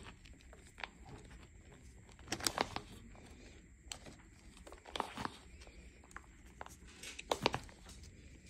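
Hands squeezing and crumbling a dry, chalky mass of cornstarch and gym chalk, giving crisp crunches in three short clusters with softer crumbles between.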